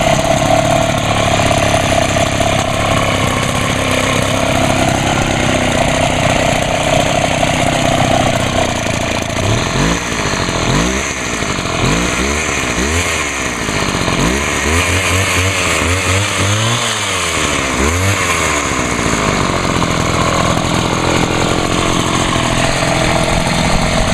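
Homelite HT-21 hedge trimmer's small two-stroke engine running on its freshly rebuilt carburetor, steady at first, then revved up and down several times for about ten seconds in the middle before settling back to a steady run. It is fairly quiet for its kind, through a small muffler.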